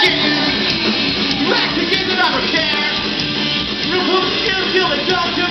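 Ska-punk band playing live at full volume: drums, electric guitars, bass, trombone and saxophone together, heard from the balcony of a club.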